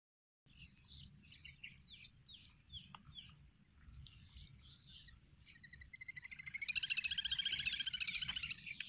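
Birds calling: short scattered chirps, then a fast buzzy trill that swells to its loudest over the last few seconds, over a low, steady rumble.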